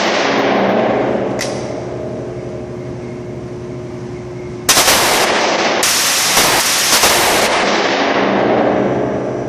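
FN P90 (5.7×28mm) firing full-auto: the echo of a burst dies away, a single sharp crack follows about a second and a half in, then a long burst of about three seconds starts about five seconds in, broken briefly near its start. The shots ring off the hard walls of an indoor range, over a steady ventilation hum.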